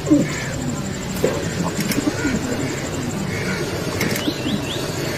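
Pigeons cooing: repeated low, soft calls. A brief run of high chirps comes about four seconds in.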